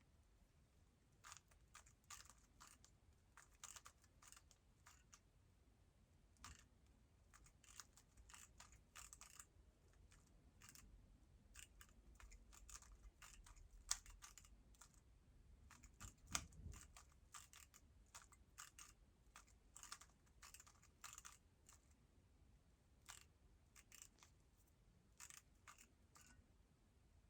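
Faint, irregular runs of soft clicks as the layers of a Moyu WRM 2020 speedcube are turned by hand during a solve, with a louder clack about halfway through.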